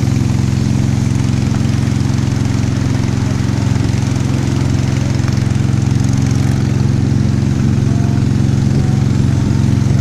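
Engine of a small motorised passenger boat running steadily at speed, with a steady hiss over it.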